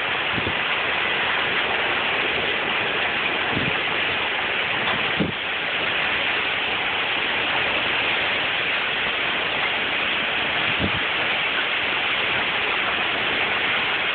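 Heavy storm rain pouring down, a steady dense hiss. A few brief low thumps break in, about a third of the way in, again soon after, and near the end.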